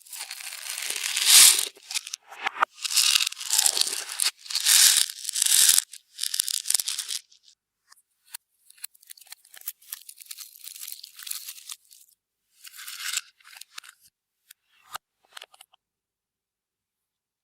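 Slime being stretched, folded and squeezed by hand, in irregular sticky crackling and squelching bursts. The bursts are loudest over the first several seconds, turn softer and sparser, and stop shortly before the end.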